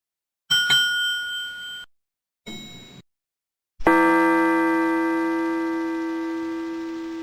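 A sequence of separate bell strikes. About half a second in, a high bright ding rings for just over a second and is cut off. A faint brief ding follows around two and a half seconds. Near four seconds, a deeper bell with many overtones is struck and rings on, fading slowly.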